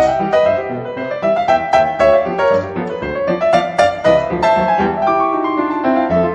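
Piano music playing a quick, busy run of notes.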